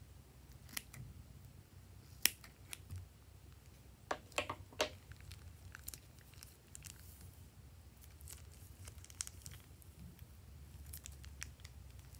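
Scissors snipping the tip off a plastic piping bag, then scattered clicks and crinkles of the plastic bag being squeezed and handled. The loudest snap comes about two seconds in, with a quick run of sharp clicks around four to five seconds in.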